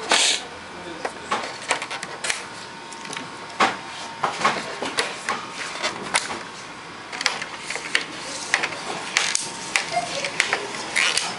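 Thin plastic LED reflector sheet in a Samsung LCD TV backlight being handled and pressed down over the LED lenses: a string of irregular crinkles and sharp clicks.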